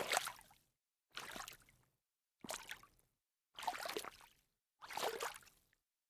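Sneakers stepping in shallow water: five separate splashing steps, about one every 1.2 seconds, each a short slosh that fades quickly, with silence between.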